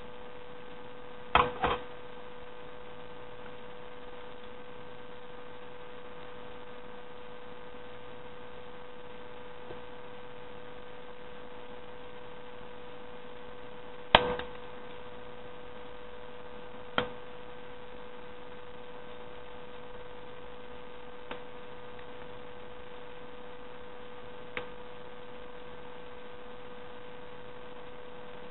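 A steady electrical hum, with a few short sharp crackles of folded, cut paper being opened out by hand: a quick pair near the start, the loudest about halfway through, and a few fainter ones after.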